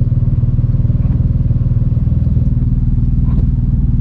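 Nissan 350Z's 3.5-litre V6 idling steadily at a constant pitch, heard from the driver's seat, while the car is let cool down after hard drifting.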